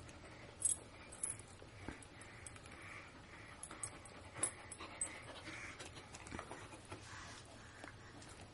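Large dog panting softly in steady puffs, with a few sharp clicks as its teeth mouth a toy held in a baby's hands.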